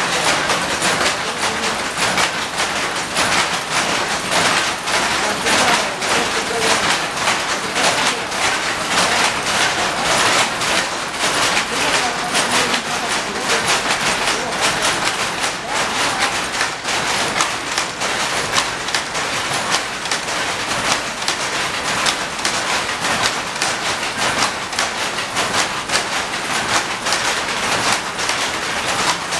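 Power looms weaving cloth, running with a loud, steady, rapid mechanical clatter.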